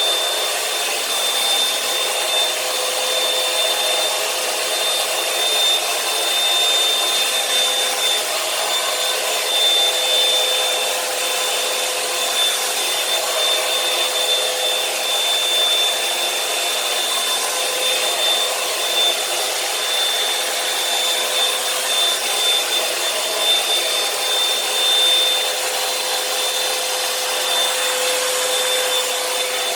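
Revlon One-Step hot-air brush hair dryer running steadily: an even rush of blown air with a steady high whine from its motor and fan.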